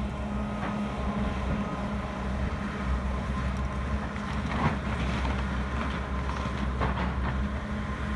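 Demolition machinery running steadily: the diesel drone of an excavator and a water-mist dust-suppression cannon, with a few sharp cracks and crunches as the excavator's grapple tears into the wood-frame house.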